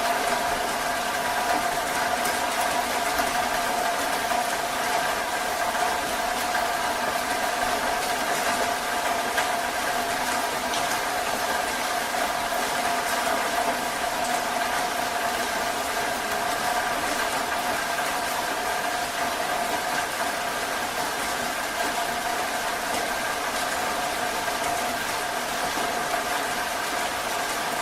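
Heavy rain falling as an even, steady hiss, with a constant hum of a few steady tones running underneath it.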